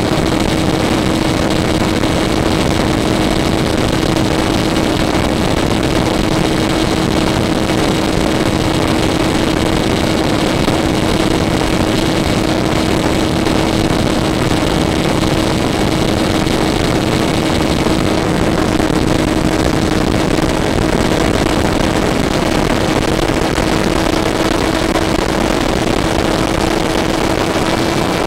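RC airplane's motor and propeller running at a steady pitch, heard with a constant rush of wind over the onboard camera's microphone.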